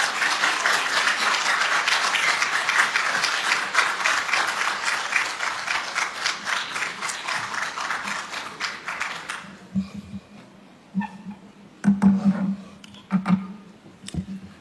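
Assembly members applauding in a hall, a dense steady clapping that stops after about nine and a half seconds. A few scattered knocks and low thuds follow.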